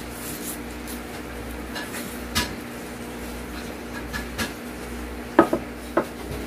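A wooden fork knocking against a ceramic bowl: a few short, sharp clinks, the loudest about five seconds in, over a steady low hum.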